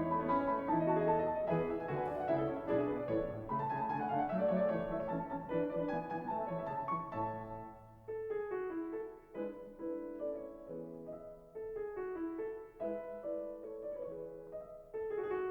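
Background piano music, a gentle melody of single notes over chords.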